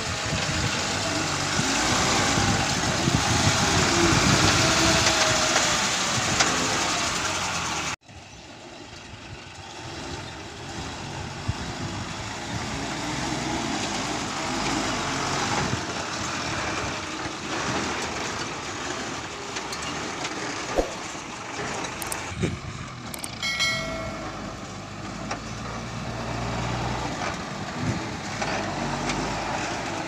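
Diesel engine of a rock-laden tipper lorry running as the lorry moves and manoeuvres over dirt. The sound drops abruptly about eight seconds in and carries on quieter, with a short pitched tone a few seconds before the end.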